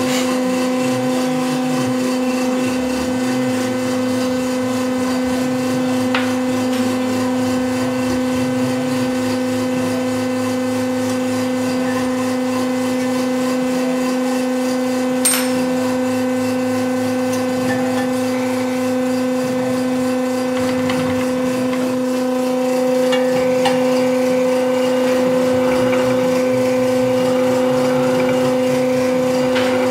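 Valve seat cutting machine running with a steady, even hum as the valve seats of a Chrysler 440 big-block cylinder head are cut. There is a single sharp click about halfway through, and the hum grows a little louder in the last third.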